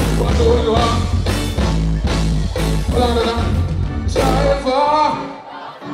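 Live band music with a singer. The bass and the fuller band drop out about four and a half seconds in, leaving quieter singing.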